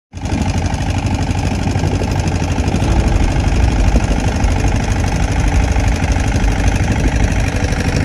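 Boat engine running steadily.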